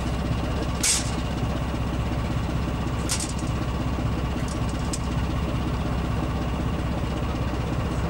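Diesel-hydraulic locomotives idling, a steady low engine hum, with two short hisses about one second and three seconds in.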